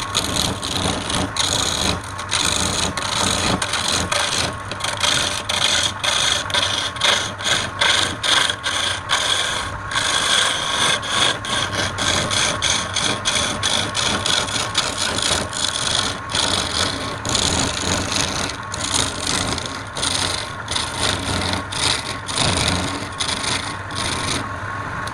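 Wood lathe running with a cutting tool scraping the spinning wood: a steady motor hum under uneven, rapid scraping strokes.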